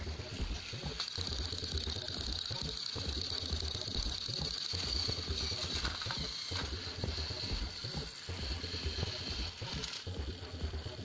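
Battery-powered toy train engine running along plastic track: its small motor and gearbox whir and rattle with a steady high whine from about a second in until near the end.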